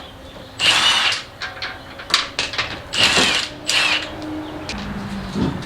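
A power tool spinning off already-loosened wheel lug nuts in three short bursts of whirring, with small clicks and knocks between them.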